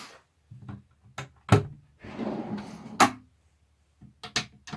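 A cabinet drawer on ball-bearing slides being pushed shut and worked against its metal slam latch: a run of clicks, a sharp thunk about one and a half seconds in, a sliding rush ending in another thunk about three seconds in, and quick latch clicks near the end.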